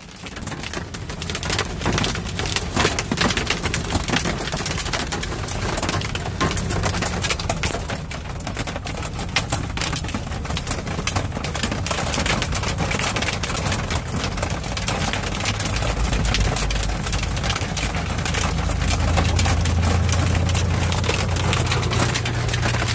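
Hailstones pelting the roof and windshield of a semi-truck cab in a dense, continuous clatter of sharp hits, over the low drone of the truck's engine and road noise, which grows louder near the end.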